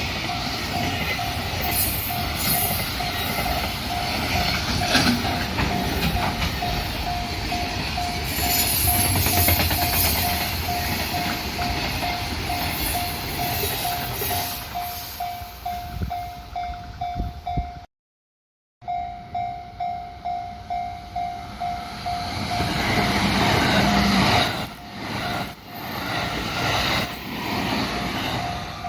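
Japanese level-crossing warning bell ringing a steady, evenly pulsed tone while an electric train passes over the crossing. The sound breaks off for a moment about two-thirds of the way in. Then the bell rings on as another train passes, its wheels clattering rhythmically over the rail joints near the end.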